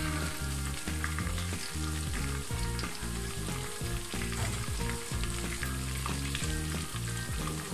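Chicken pieces deep-frying in hot oil, a steady sizzling hiss with small pops, a metal spoon scraping as the pieces are turned; the chicken is browned and at the end of its frying. A low background tune runs underneath.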